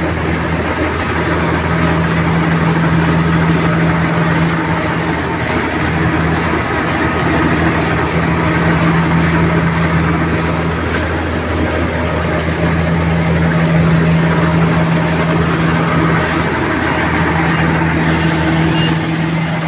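Engine of a harvesting machine running steadily at a constant speed, a loud, even hum. Near the end an electronic reversing beep starts.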